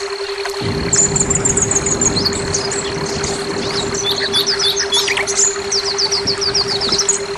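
Orange-headed thrush (anis merah) singing in quick runs of high, rapidly repeated chirps and whistled notes, over a steady low hum and a thin steady high tone from the brainwave-therapy track.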